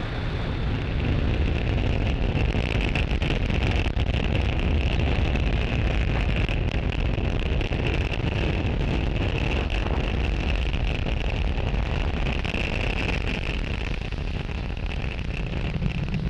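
The nine Merlin 1D first-stage engines of a Falcon 9 rocket thrusting in the climb shortly after liftoff: a steady, deep rumble with a crackle running through it.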